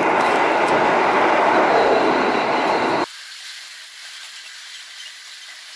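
Train running on the rails: a loud, rushing noise that cuts off abruptly about three seconds in, giving way to a quieter, thin hiss.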